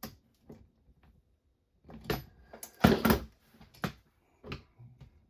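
Parts and tools of an RC car kit being handled and set down during assembly: a few separate knocks and clatters, the loudest about three seconds in.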